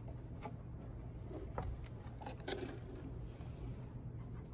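Faint scattered clicks and scrapes of a rusty sheet-metal base plate being handled and lifted off the underside of a bench grinder, over a steady low hum.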